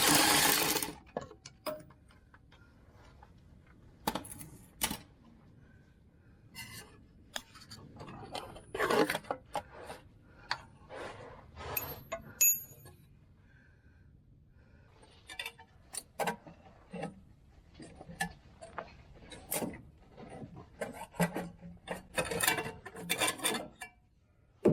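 Irregular metal clinks, knocks and scraping as a starter motor is worked loose and slid out from beneath a pickup truck's engine.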